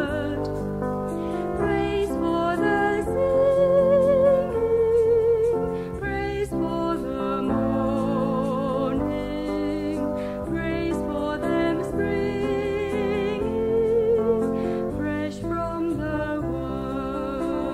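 Religious vocal music: a voice holding long notes with vibrato over a sustained chordal accompaniment, phrase after phrase.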